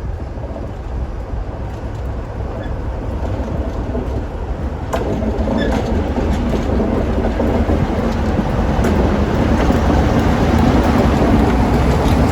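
Heritage diesel locomotive with its train, a steady low engine rumble and wheel noise growing louder as it approaches. A few sharp clicks sound over the rumble, the first about five seconds in.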